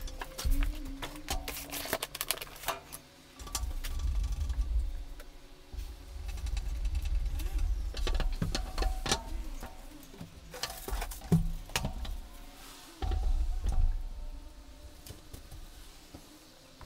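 Irregular clicks, knocks and thuds of a flat-pack IKEA Besta cabinet being assembled: chipboard panels shifted and set down on a wooden table, screws and small fittings handled.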